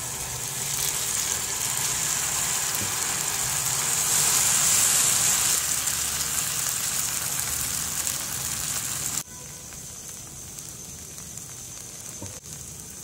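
Semolina batter sizzling on a hot tawa greased with ghee: a steady frying hiss. About nine seconds in it drops suddenly to a quieter sizzle.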